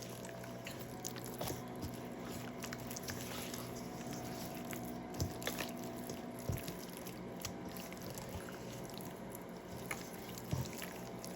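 Hands massaging mustard and dry seasoning into raw pork chops: soft, wet squishing with a few small clicks, over a faint steady hum.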